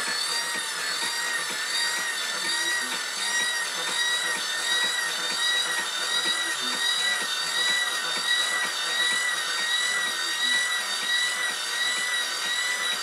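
Small electric motor of an RC tipper truck's tipping mechanism running steadily as it slowly raises the dump bed: a high-pitched whine with a slight, regular waver.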